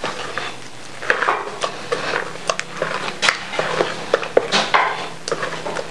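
Metal spoon stirring thick blended black-eyed-pea batter in a plastic bucket, with irregular clinks and scrapes against the bucket, mixing in a little added water to loosen the batter.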